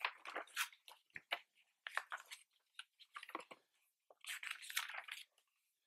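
Pages of a glossy art book being turned by hand: faint, scattered paper rustles and slides with short quiet gaps, and a longer rustle of a page turn about four seconds in.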